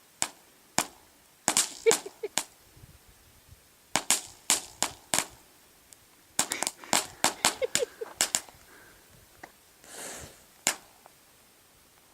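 Aerial fireworks going off: irregular sharp bangs and pops, several in quick clusters, with a short rushing crackle about ten seconds in.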